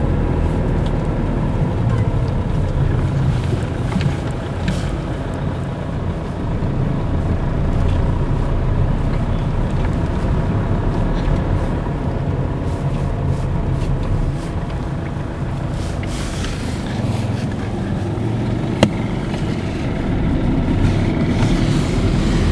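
Car cabin road noise: the car's engine and tyres rumbling steadily over a rough, partly unpaved road, with one sharp click about three-quarters of the way through.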